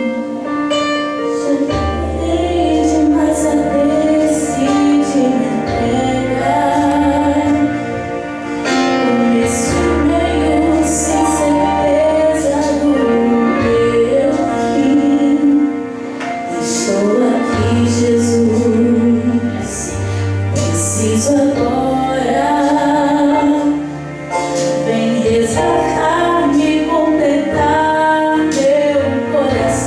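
A young woman singing a song into a handheld microphone, over a musical accompaniment with held bass notes that change every couple of seconds.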